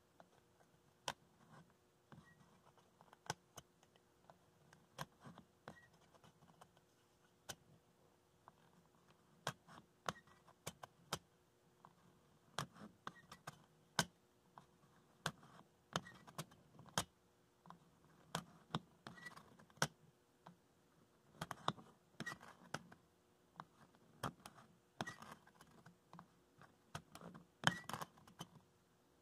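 A 1950s Dexter hand-held stitcher worked stitch by stitch: its mechanism gives sharp, uneven clicks about once or twice a second, sometimes in pairs, as the needle goes through the cloth and forms a chain stitch. Soft rustling of the fabric comes between the clicks.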